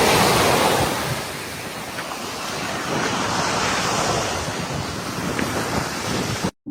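Sea surf washing onto the shore, with wind buffeting the microphone. The sound cuts off suddenly near the end.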